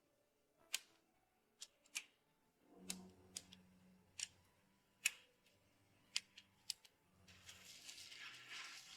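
Hand tools and small metal parts being handled: about ten sharp clicks and clinks at irregular intervals, then a hiss starting near the end.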